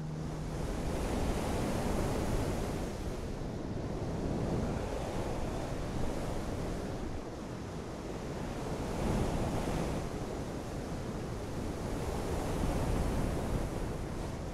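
Ocean surf: a steady wash of waves that swells and ebbs every few seconds.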